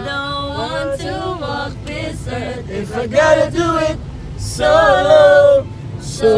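Several men and women singing together inside a car, over the steady low rumble of the car cabin.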